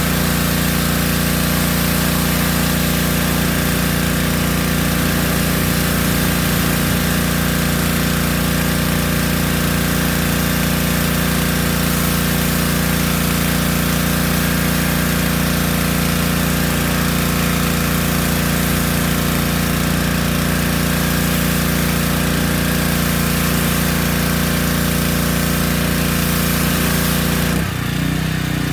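Yamaha PowerStroke 3100 PSI gas pressure washer running steadily, its small engine humming under the loud hiss of the high-pressure spray hitting the car. Near the end the spray hiss cuts out and the engine note changes.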